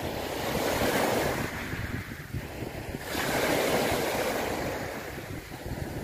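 Churning sea water rushing and washing, a continuous noisy surge that swells around one second in and again sharply at about three seconds.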